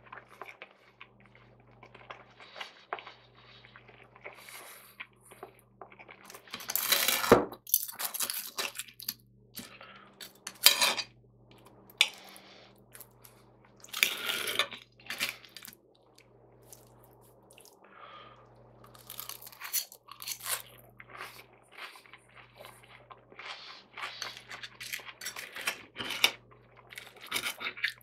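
Metal knife and fork clinking and scraping on a ceramic plate in irregular bursts while cutting through a fried breakfast, with crunches from the fried bread and chewing in between.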